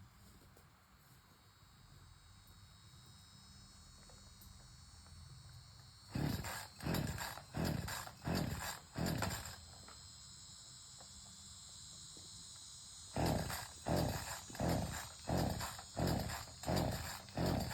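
Chainsaw's recoil starter cord yanked again and again, the engine turning over without catching: a run of about five quick pulls, a pause, then about eight more.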